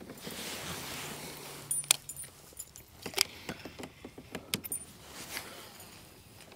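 Daiwa Tatula 100 baitcasting reel and rod worked during a retrieve. A light hiss runs through the first two seconds, then come scattered sharp clicks and small metallic rattles, about a dozen.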